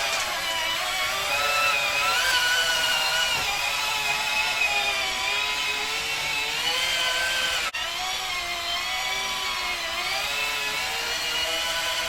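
Electric motors and hydraulic pump of radio-controlled scale construction machines whining steadily, the pitch wavering up and down as they work under changing load, with a momentary break about eight seconds in.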